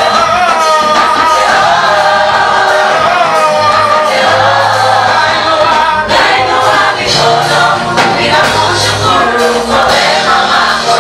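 A gospel choir singing a praise song with instrumental accompaniment.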